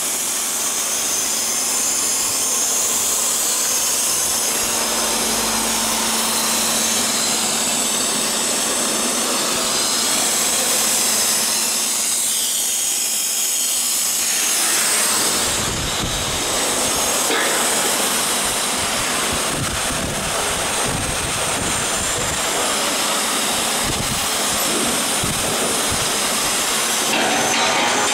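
Loud, steady, hissing machine-shop din around an aluminium-profile CNC drilling and milling machine. From about halfway in, irregular low knocks and thumps join it.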